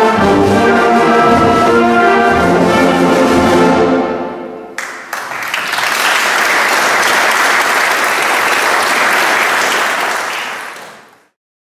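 A wind band with brass to the fore holds a final chord that dies away about four seconds in. Audience applause follows and fades out near the end.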